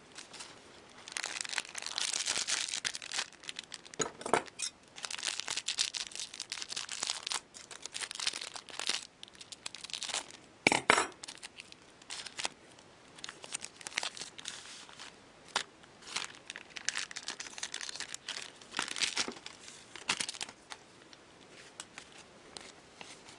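Foil trading-card packs crinkling and being torn open by hand, with cards shuffled out of them; irregular rustling bursts with a few sharper snaps, the loudest about eleven seconds in.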